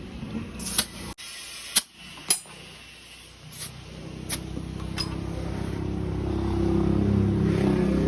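A few sharp knocks, then a motor vehicle's engine running and growing louder from about three and a half seconds in.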